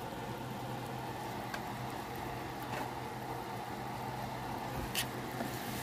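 A steady low hum with a fine simmering hiss from pots cooking on the stovetop, chocolate and butter bubbling in a saucepan. A few faint clicks, the clearest near the end.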